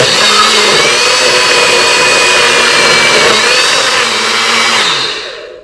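Personal bullet-style blender running at full speed, its motor whining steadily as it grinds soaked rice, a cinnamon stick and a chocolate tablet in water. It switches on abruptly and winds down about five seconds in.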